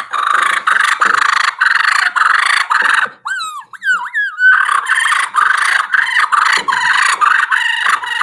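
Wild turkey fight sequence on a mouth call: rapid, raspy fighting purrs, broken a little past three seconds in by a few swooping squeals, then more raspy purring.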